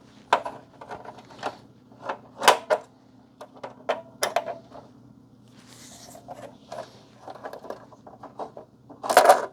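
Clicks and clatter of small hardware being handled during disassembly of an electronic device: screws, washers and a screwdriver knocking on the case and bench, with a denser rattle near the end, over a faint steady hum.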